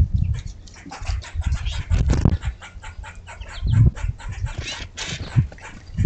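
Small birds feeding at a hanging wire-mesh tube seed feeder: a rapid, uneven run of pecking clicks and taps, broken a few times by louder low thumps and wing flutters as birds land and take off.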